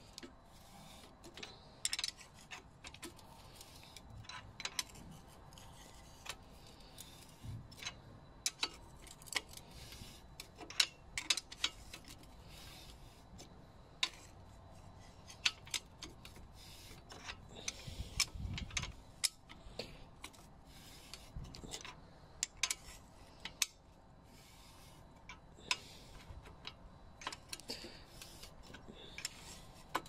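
Bicycle bottom bracket cup being turned with a metal wrench: irregular metallic clicks, ticks and small scrapes of the tool on the cup and frame shell, with a low thud about two-thirds of the way through.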